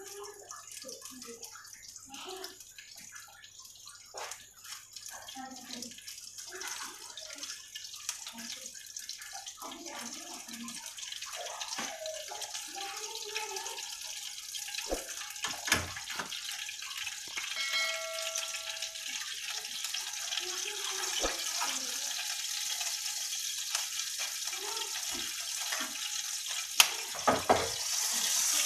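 Oil heating in a non-stick frying pan over a gas burner, a hiss that grows steadily louder as it starts to sizzle. A few sharp metal knocks of a ladle or the pan near the end.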